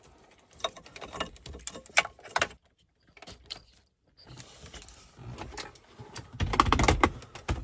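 Wiring harness plugs being unplugged from the back of a car head unit: scattered plastic clicks and cable rattles. The handling grows busier and louder with low knocks about six seconds in.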